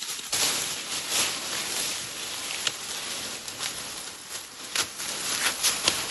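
Leafy branches rustling and crackling as a baby elephant pushes and tramples through them, with frequent sharp snaps of twigs.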